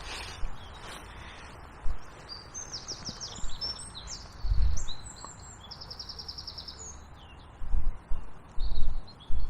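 A songbird singing a string of high, quickly changing phrases, including a fast trill in the middle. Low buffeting on the microphone comes and goes and is loudest near the end.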